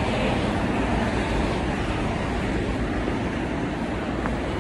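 Steady city-street traffic noise: an even rush of road vehicles.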